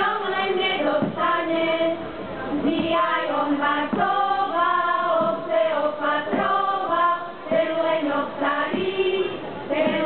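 A Slovak folk choir sings a Christmas song together, holding notes in phrases with short breaks between them.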